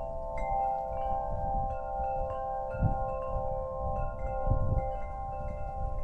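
Wind chimes ringing in the wind: several overlapping tones hold and are struck afresh every second or so. Low wind rumble on the microphone swells now and then underneath.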